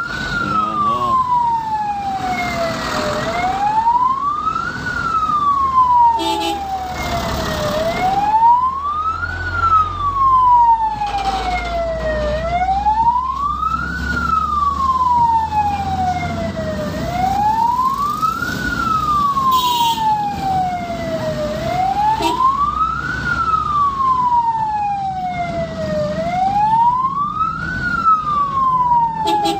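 Ambulance siren in a slow wail, rising quickly and falling more slowly in pitch, repeating about every four and a half seconds. Road traffic and engine noise run beneath it.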